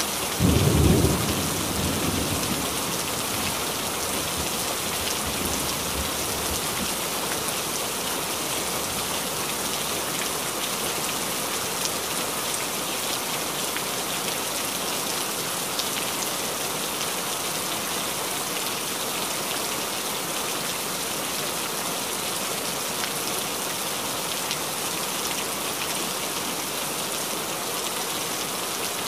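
Steady heavy rain, with a low roll of thunder about a second in that dies away over the next several seconds.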